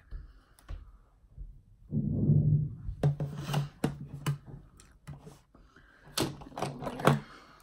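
Makeup products being handled and set down: a dull bump about two seconds in, then two bursts of small clicks and taps from cases and brushes.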